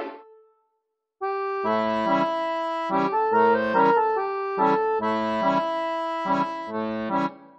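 Background music: held, reedy chords over a bass line, re-struck about twice a second. It starts after a second of silence and stops just before the end.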